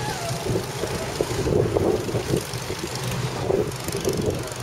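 Go-kart engines running as a pack of karts goes round the circuit, heard from trackside as a steady low hum with uneven swells as the karts rev.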